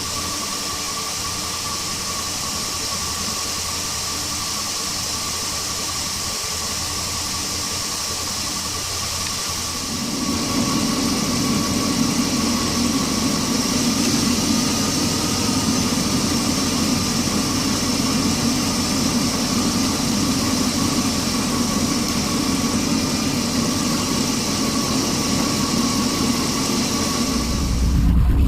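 A Jeep 4.7 V8 idles steadily while Blue Devil head gasket sealer circulates through a suspected leaking head gasket. The sound grows louder about ten seconds in.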